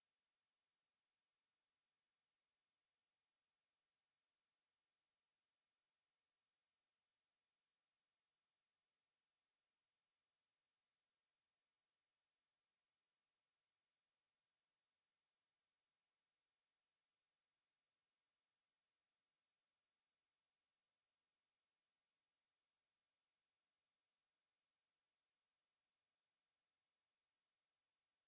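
A pure sine-wave test tone at 5926 Hz, a single steady high-pitched whistle held at constant level.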